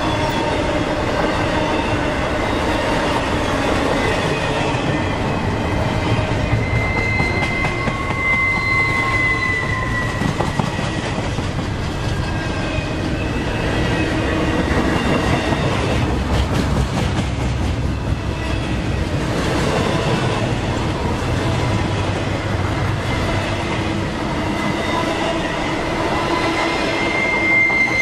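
Double-stack intermodal freight cars rolling past: a steady rumble of steel wheels on rail, with thin, high wheel squeals coming and going, clearest about eight to ten seconds in and again near the end.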